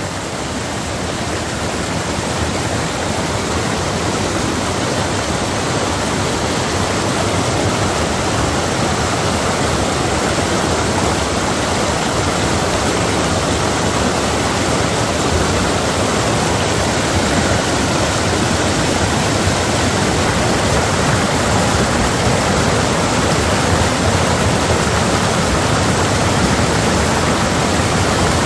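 Rushing river water: a steady, loud wash that swells over the first couple of seconds and then holds.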